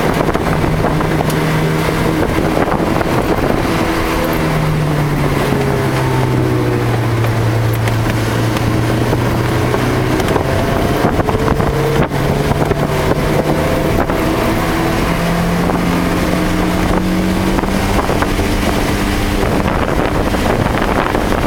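Car engine heard from inside the cabin, driving on a wet track. Its note drops and then climbs again through gear changes, over a steady rushing noise of road and spray, with a brief break near the middle.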